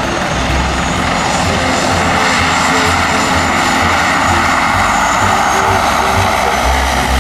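De Havilland Twin Otter's two PT6A turboprop engines running close by: a loud, steady propeller drone with a high turbine whine over it.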